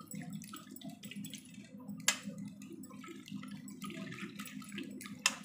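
Water bubbling in a steel pan while a steel spoon stirs the cut-open dishwash-liquid pouches in it. The spoon clinks sharply against the pan about two seconds in and again near the end.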